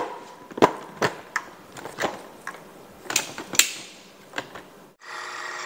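Plastic clicks and knocks as a food processor's lid and feed-tube pusher are handled and locked in place, then, about five seconds in, the food processor's motor starts and runs with a steady whirring hum, whipping heavy cream.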